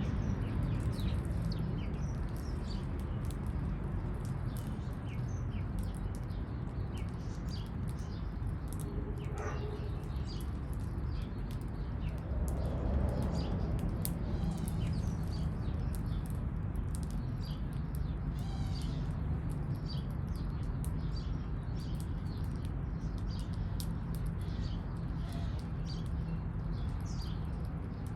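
Small birds chirping, many short high chirps throughout, over a steady low city rumble.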